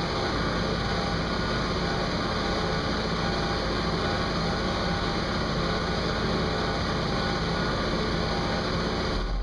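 Car-audio bass 'burp': a 42 Hz test tone played at full power through two Sundown SAZ-2500 subwoofers, heard as a loud, steady, buzzing drone that cuts off sharply near the end.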